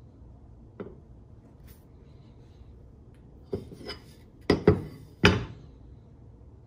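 Hatchet with an ipe wood handle being handled and set down on a wooden workbench: a light click about a second in, then a few knocks of the steel head and handle against the bench, the loudest three sharp and in quick succession.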